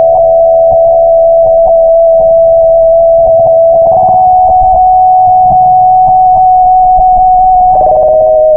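Electronic music: a loud held synthesizer note, one steady tone that steps up slightly about halfway through and drops lower near the end, with light ticks underneath.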